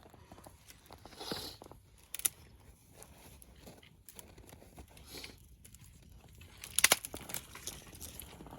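Crinkling and crackling of a small campfire being started and fed with kindling, with scattered sharp snaps, the loudest a quick cluster about two-thirds of the way through.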